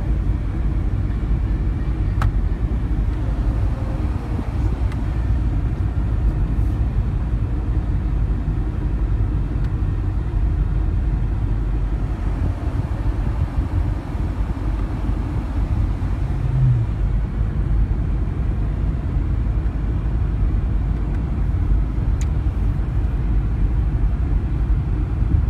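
Steady low rumble of road and engine noise from a car driving along a highway, heard inside the cabin.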